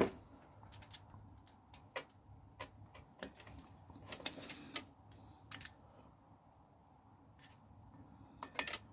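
A small metal pick clicking and scraping inside a brake caliper's piston bore, working at the old inner piston seal to prise it out. Faint, irregular ticks.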